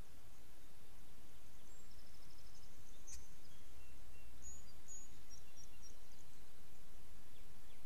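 Steady outdoor hiss with a low rumble, over which small songbirds give faint, high-pitched chirps and a short trill between about two and five seconds in.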